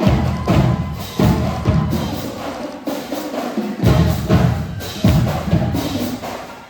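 Marching band drumline playing loudly: snare drums rattling over repeated heavy bass drum hits, echoing in a gymnasium.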